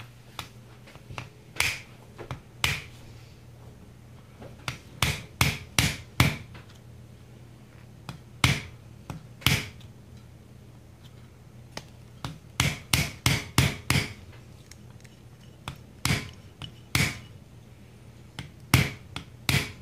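Sharp, irregular metal knocks and taps from hand tools working a Holley four-barrel carburetor apart with a screwdriver, some single and some in quick runs of four or five, over a steady low hum.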